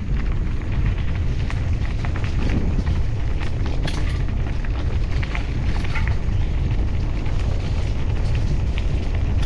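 Loud, steady wind buffeting on the microphone while moving along the trail, with scattered crackles and snaps of dry leaves and brush.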